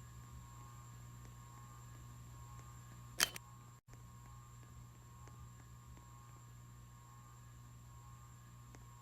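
Kawic KWF-1606 ceiling fan running with a faint steady motor hum. One sharp click about three seconds in.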